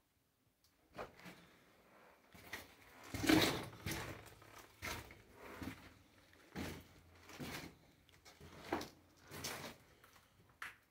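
Footsteps crunching and scraping on loose rock and rubble, about one a second and uneven, the loudest about three and a half seconds in.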